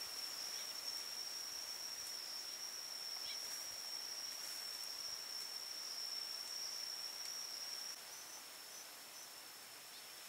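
An insect trilling steadily outdoors: one unbroken high-pitched tone over a faint hiss. The background gets a little quieter about eight seconds in.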